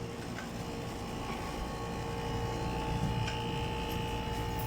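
Split air conditioner unit running with a steady electrical motor hum at constant pitch, with a couple of faint ticks.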